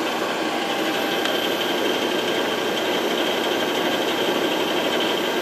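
Three-phase electric motor running steadily at about 1800 RPM on a variable frequency drive set near 60 Hz: an even hum and whir with a steady high-pitched whine.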